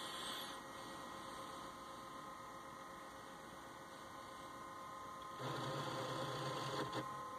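Faint steady electrical hum, with a slightly louder low buzz lasting about a second and a half starting about five and a half seconds in.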